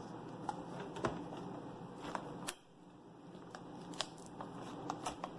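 Scattered light clicks and taps of hands working at a laptop's LCD panel and the adhesive tape holding it. The sharpest click comes about two and a half seconds in.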